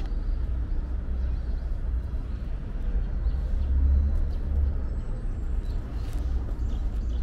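Low, steady rumble of city street ambience, a little louder about four seconds in.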